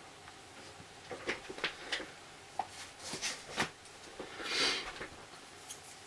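Small metallic clicks and taps as a lock is taken apart by hand: the brass plug, pins and tweezers being handled and set down on a rubber mat, with a brief rustle about four and a half seconds in.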